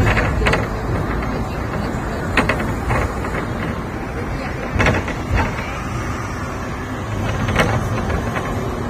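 Hong Kong double-decker tram running along its street tracks: a steady low rumble with a handful of sharp clatters and knocks.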